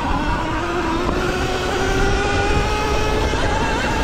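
Stock Sur-Ron Light Bee electric dirt bike's motor whining, its pitch rising slowly as the bike gathers speed, over a low rumble of wind and tyres.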